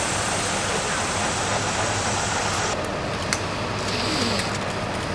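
A steady engine idling, with a high hiss that drops away suddenly about three seconds in. There are faint voices in the background.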